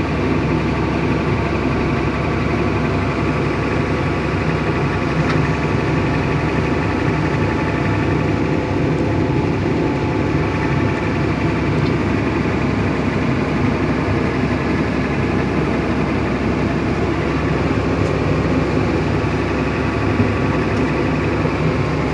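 Excavator's diesel engine running steadily, a low, even rumble with no change in speed.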